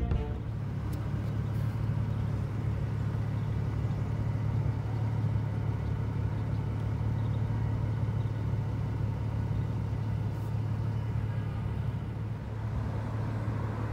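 An idling engine gives a steady low hum that holds unchanged throughout, with a faint steady higher tone above it.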